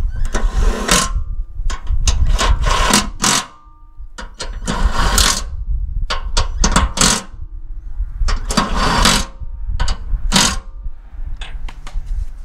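Impact wrench run in about seven short rattling bursts, each a second or less, driving bolts on a riding mower's deck.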